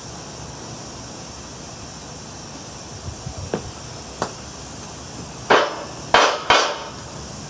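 Sharp knocks of a tool striking a hard object: two light taps, then about two seconds later three loud blows in quick succession.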